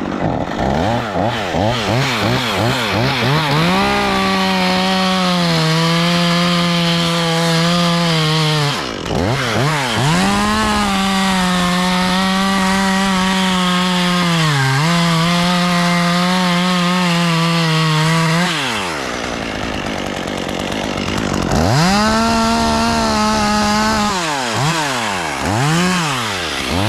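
Two-stroke chainsaw cutting wood at full throttle, its pitch sagging a little as the chain bites and dipping briefly a few times. About 19 seconds in it drops to idle for a couple of seconds, then revs up again.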